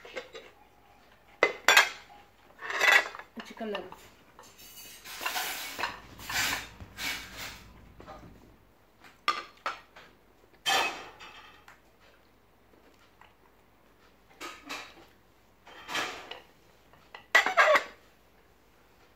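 Tableware being handled: white serving dishes, plates and a glass bowl set down and shifted on a table, giving irregular clinks and knocks, with a few seconds of scraping in the first half.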